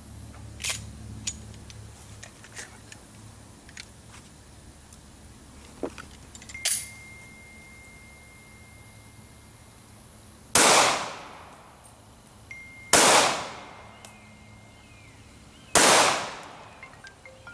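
Three .40 S&W pistol shots with Magtech Guardian Gold 180-grain hollow-point loads, spaced two to three seconds apart. Each is a sharp crack that rings off over about a second. Several shorter clicks come in the first seven seconds.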